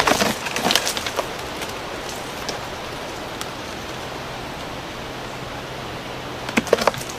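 A steady hiss, with a few short crackles and snaps of twigs and branches near the start and again near the end, as the hung-up piece of a dead tree is worked loose.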